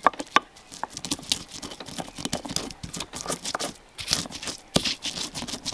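Volcanic stone molcajete and tejolote grinding toasted onion, garlic and spices: the stone pestle crushing and scraping against the stone bowl in a quick run of irregular crunches and knocks.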